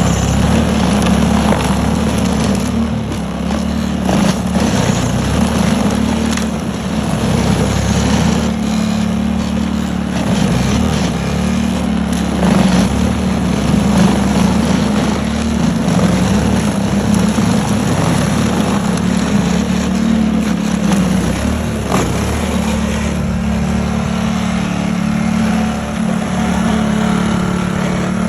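Small gas engine of a YARDMAX YB4628 18-inch single-stage snow thrower running steadily.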